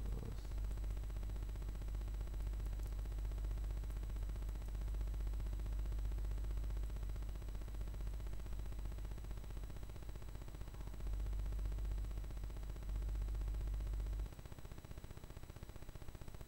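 Low steady hum with a few faint clicks in the first few seconds. The hum cuts off suddenly about fourteen seconds in, leaving a quieter background.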